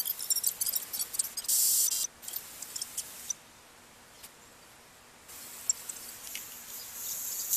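Handheld two-way radio's speaker giving crackling static and short bursts of hiss, with a quieter gap midway: weak reception that, by the owner's reckoning, needs a better aerial.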